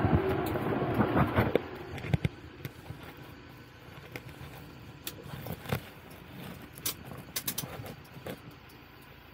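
A vehicle driving on the road, loud for the first second and a half and then dropping away to a quieter running noise, with scattered sharp clicks and knocks.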